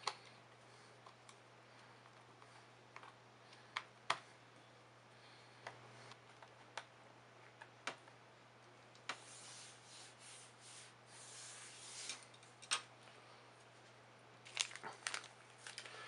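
Faint scattered clicks and ticks of tiny screws and a small screwdriver on a MacBook Air's aluminium bottom case as the case screws are driven back in, with a few seconds of soft scraping past the middle and a quick run of clicks near the end.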